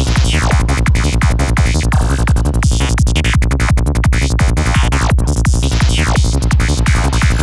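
Electronic trance dance music with a steady, evenly repeating kick drum, a pulsing bassline and falling synth sweeps.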